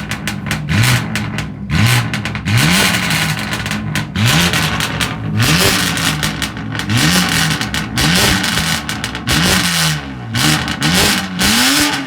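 BMW M car's turbocharged straight-six exhaust being blipped while stationary: sharp revs that rise and fall back about once a second, with crackling pops on the overrun between them. Near the end the revs are held a little longer before dropping.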